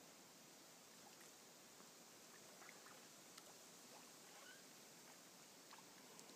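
Near silence: a faint steady hiss with scattered faint ticks and small water sounds from ducks dabbling and upending in shallow water.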